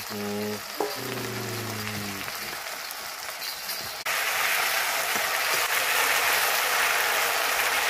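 Oil sizzling in a wok as vegetable slices fry, jumping suddenly louder about four seconds in. Over the first two seconds a melody with held notes plays above quieter frying.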